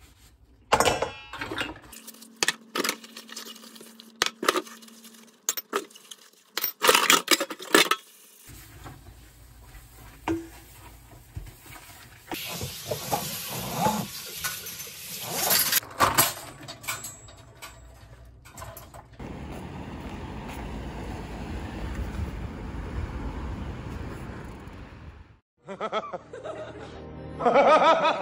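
Dishes being washed by hand in a kitchen sink: ceramic bowls and plates clink and knock against each other for the first several seconds. Then tap water runs steadily into the sink for most of the rest.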